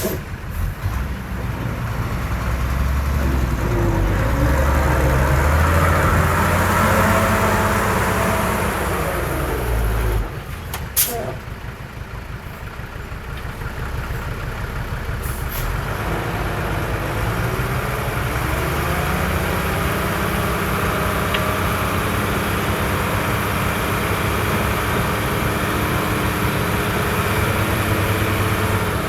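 Heavy diesel engine of earthmoving machinery working under load, swelling for several seconds, easing off about ten seconds in, then building again and running steadily. A single sharp click comes about eleven seconds in.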